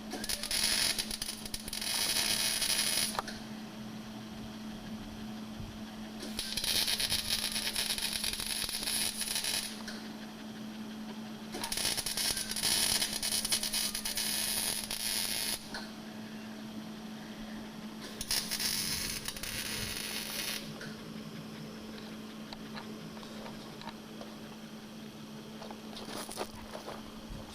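Electric arc welding on an oil pan: the arc crackling and hissing in about five bursts of one to four seconds each, with pauses between them, over a steady low hum.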